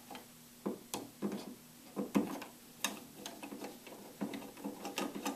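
Screwdriver driving the screws of a light-switch cover plate: a string of small, irregular clicks and ticks as the tip works in the screw heads and against the plate.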